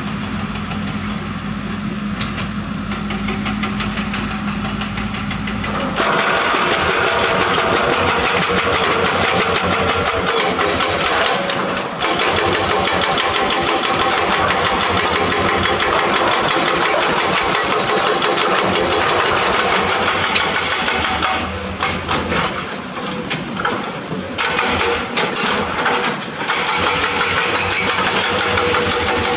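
Komatsu D31P bulldozer's diesel engine running with a steady low hum, then, about six seconds in, an abrupt switch to a hydraulic rock breaker on an excavator hammering limestone in rapid, continuous blows. The hammering stops and restarts a few times near the end.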